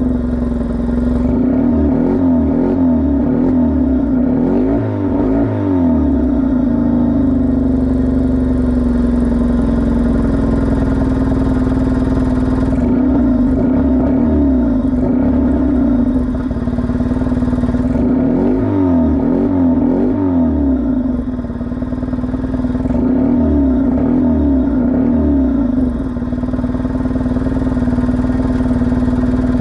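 Isuzu Impulse RS AWD's turbocharged four-cylinder engine idling, with an uneven, pulsing low beat that comes and goes. The owner says it is running way too rich and calls the sound typical of that.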